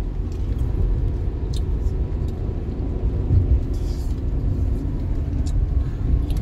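Steady low rumble of a car on the move, heard from inside the cabin, with a few faint light ticks.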